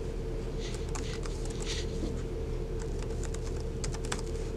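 Typing on a Lenovo N23 Chromebook's keyboard: quick, irregular, soft key clicks over a steady low hum.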